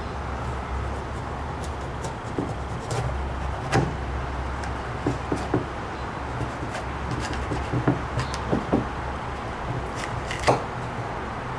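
A knife cutting open a large elephant ear sweet pepper: scattered crisp clicks and snaps, the sharpest about four, eight and ten seconds in, over a steady low hum.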